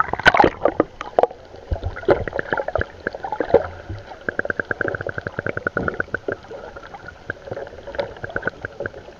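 Splash as a camera plunges into the sea, then muffled underwater sound: irregular clicks and knocks, giving way about four seconds in to an even, rapid ticking of roughly eight clicks a second.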